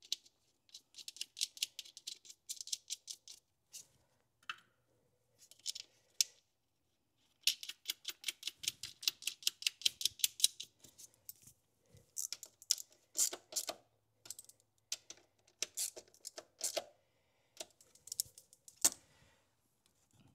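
Hand ratchet clicking in quick runs of about eight to ten clicks a second, pausing and starting again, as the bolts of a vacuum switching valve are run in, with a few louder single clicks of tool on metal.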